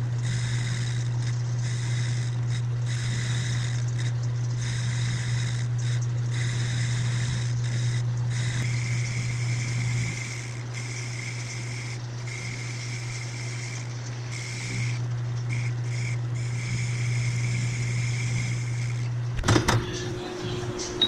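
Metal lathe running, its motor giving a steady low hum while a lathe tool turns down a round metal bar, the cutting adding a hiss and a thin whistle that start and stop as the tool feeds in and out. Near the end the lathe stops and a few sharp metal knocks follow.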